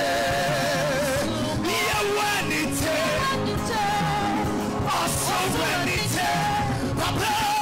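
Church praise music with singing: a voice holds long, wavering notes over steady accompaniment, continuous and loud throughout.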